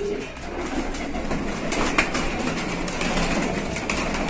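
A flock of domestic pigeons in a loft, cooing over scattered clicks and rustles as the birds move about.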